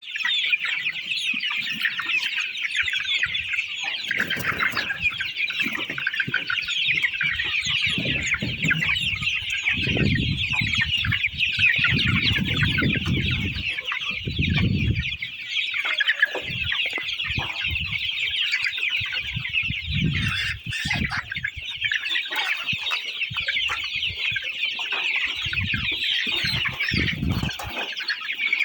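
A flock of chickens clucking, a continuous overlapping chatter of many birds. Low rumbles come and go underneath several times.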